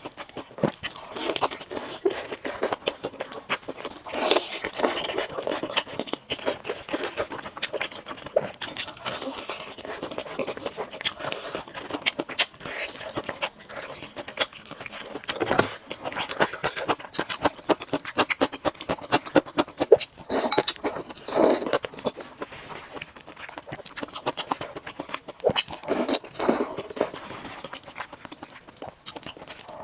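Close-miked eating sounds: chewing and slurping of Liuzhou snail rice noodles (luosifen), a dense, irregular run of wet mouth clicks and smacks.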